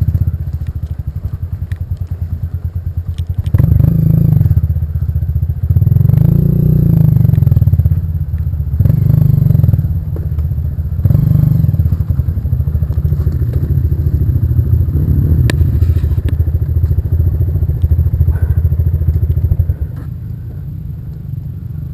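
Off-road trail motorcycle engine running hard, with several surges of throttle in the first half and a steadier run after that. It eases off near the end.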